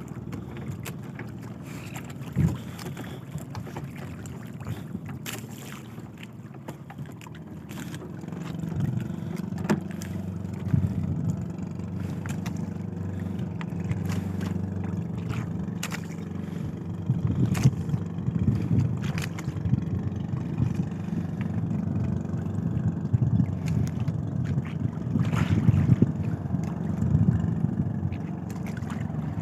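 A boat engine running steadily, growing louder about eight seconds in, with wind on the microphone and scattered light knocks.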